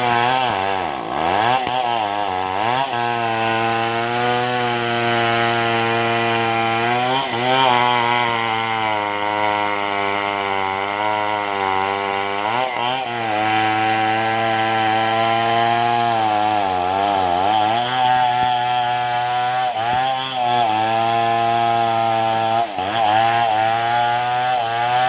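Two-stroke chainsaw running at high speed while cutting a log, its pitch dipping sharply several times as the chain bogs in the wood and then climbing back.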